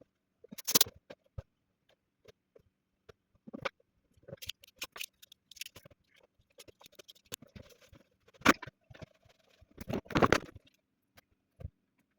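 Irregular scrapes, clicks and rustles of hand work on linoleum flooring, with a few louder scraping strokes about a second in and again near the end.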